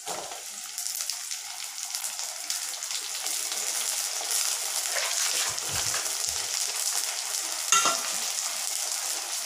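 Brinjal and drumstick pieces sizzling in a hot clay pot over sautéed onions. The crackling sizzle builds over the first few seconds after they are tipped in, then holds steady, with one brief sharp sound about eight seconds in.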